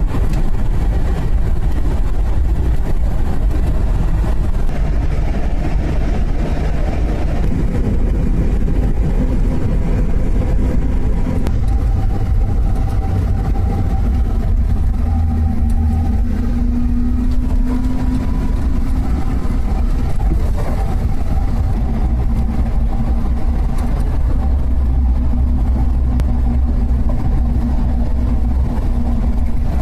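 Suzuki Samurai small 4x4 driving, its engine running steadily under a heavy low rumble of engine and road noise, the engine note rising and falling slightly.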